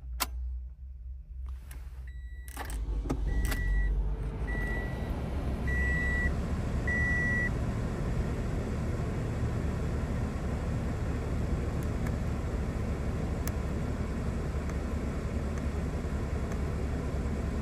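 A click, then the 2016 Toyota RAV4's 2.5-litre four-cylinder engine starts about two and a half seconds in and settles into a steady idle with a low rumble. A dashboard warning chime beeps five times, about a second apart, during the first several seconds of the idle.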